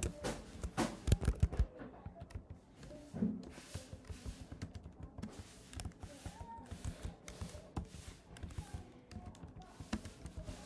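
Typing on a computer keyboard: a quick run of louder keystrokes in the first couple of seconds, then lighter, scattered key taps.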